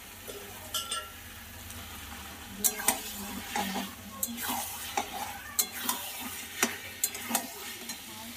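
A steel spatula scraping and knocking against a metal kadai as raw mutton pieces are turned into fried masala, over a frying sizzle. The meat is just going into the pan for mutton kosha. The knocks come thick and sharp from about two and a half seconds in.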